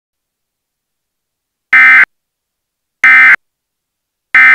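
Emergency Alert System end-of-message data bursts: three short, loud, buzzy digital squawks about 1.3 seconds apart, starting a little under two seconds in, signalling that the alert message is over.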